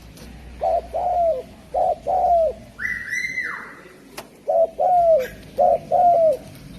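Spotted dove (derkuku) cooing: two phrases, each of four low notes in a short-long-short-long pattern, the long notes falling at the end. A brief, higher call sounds between the phrases, about three seconds in.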